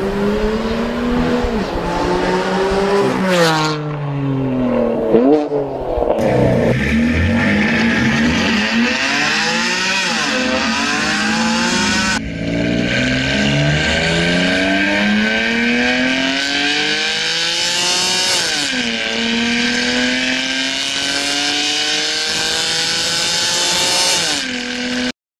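BMW F82 M4's twin-turbo inline-six, breathing through a Fi Exhaust valvetronic catback and catless downpipes, accelerating hard through the gears. Its pitch climbs steadily in each gear and drops sharply at each upshift, several times over.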